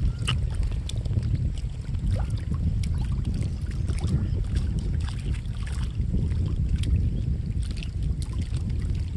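Wind buffeting the microphone in a steady low rumble, with small waves lapping against the stones at the water's edge in irregular small splashes.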